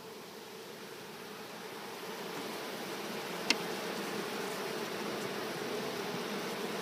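Many Carniolan honeybees buzzing, a steady hum that grows louder from about two seconds in. One sharp click sounds about halfway through.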